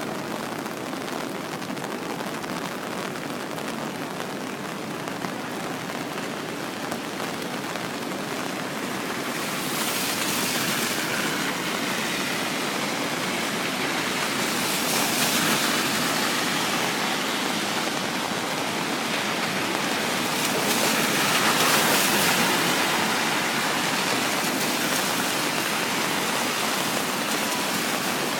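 Heavy storm rain and wind: a steady rushing downpour that grows louder about a third of the way in, with swells about halfway through and again about three quarters through.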